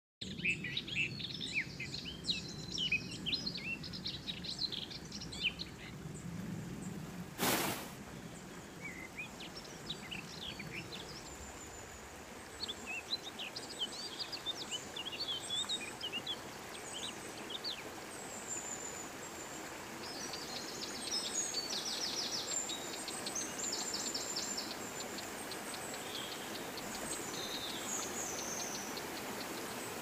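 Wild birds chirping in bursts over the steady rush of a forest stream and small waterfall. The water grows louder in the second half, where a rapid run of repeated chirps comes in. There is a single sharp knock about seven and a half seconds in.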